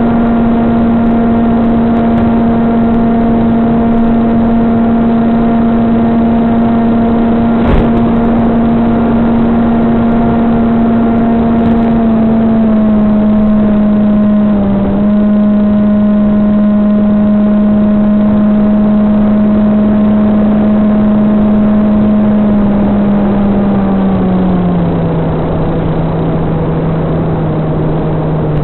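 SunnySky 2212 2450 kV brushless motor spinning an APC 6x5.5 propeller on a VAS Banshee FPV plane, heard through the onboard audio as a steady tone over a rush of noise. Its pitch steps down about twelve seconds in and falls further near the end as the throttle is cut back. A single short click sounds about eight seconds in.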